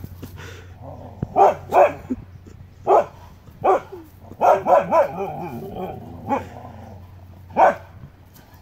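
Huskies barking at a mountain lion statue: a string of short, sharp barks, with a quick run of wavering yowls about halfway through.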